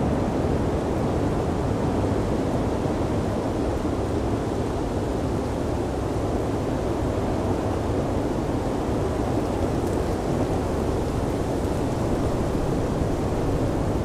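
Blizzard wind, a steady low rushing noise that holds even without gusts or breaks.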